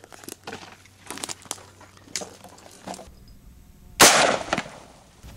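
A single sharp gunshot about four seconds in, with the bullet striking a panel of bullet-resistant glass; the report rings out for about half a second.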